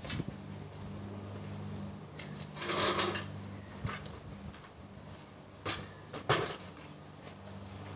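Sharp knocks and clanks from an aluminium folding ladder and a plastic paint pail being handled as the ladder is climbed down and taken hold of to move, with a half-second rustle about three seconds in. A low steady hum runs underneath.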